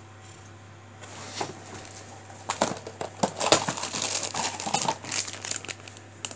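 A clear plastic bag crinkling and rustling in irregular bursts as a metal part wrapped in it is handled. The rustling starts about a second in, over a faint steady low hum.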